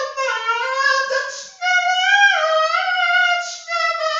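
A high voice singing long wordless notes that slide between pitches, with a short break for breath about a second and a half in.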